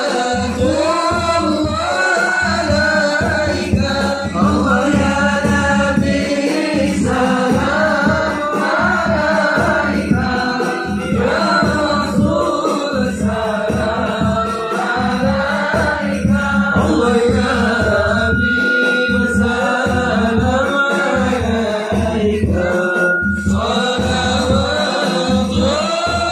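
Chanted devotional singing, the sholawat sung at a Maulid celebration, over a steady run of drum beats.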